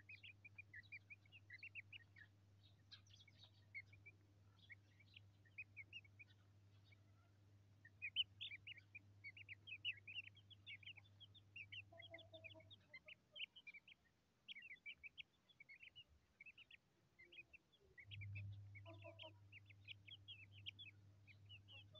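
Chicks peeping faintly, a steady stream of short high chirps, over a low steady hum that drops out for several seconds midway.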